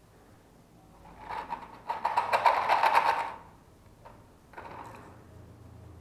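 A cloth rag scrubbing hard inside a small cup, heard as a fast, scratchy run of strokes for about two seconds. A shorter, softer rub follows near the end.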